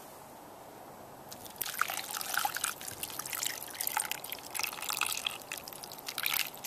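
Hot brown-sugar, butter and water syrup pouring from a small cast iron pot and trickling and splattering onto apples in a cast iron Dutch oven. The pour starts about a second and a half in.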